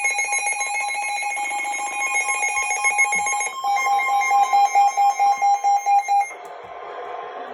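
Weather alert radio sounding a severe thunderstorm warning alarm. A shrill, rapidly warbling electronic tone gives way about three and a half seconds in to loud, fast beeps of about four a second. The beeps cut off about six seconds in, leaving a quieter radio hiss.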